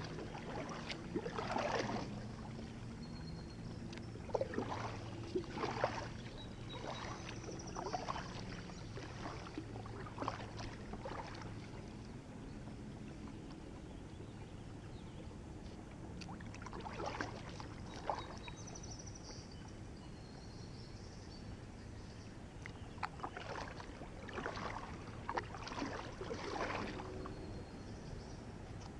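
Kayak paddle blades dipping and splashing in calm river water in runs of strokes, with a few seconds' pause near the middle while the kayak glides.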